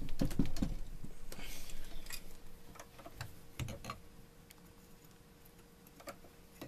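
Scattered light metallic clicks and knocks as a copper tube is shifted and handled in a machine vice on a small mill's table, heavier in the first second and fading to a few sparse taps.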